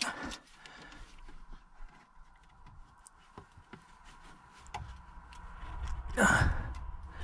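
Small scattered clicks and scrapes of a screwdriver working at the worn cogs inside a solar heating switch box, over a faint steady hum. A heavy breath out about six seconds in is the loudest sound.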